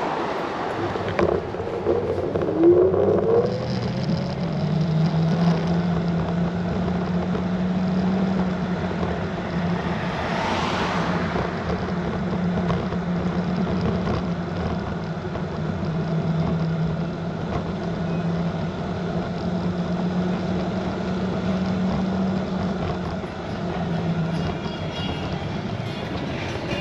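Electric scooter riding along a street: its motor whine rises as it speeds up a couple of seconds in, then holds as a steady hum over wind and tyre noise. A swell of rushing noise rises and fades about ten seconds in.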